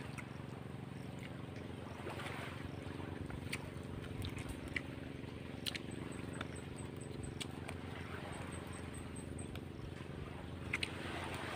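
Small boat engine running at a steady speed, an even low drone.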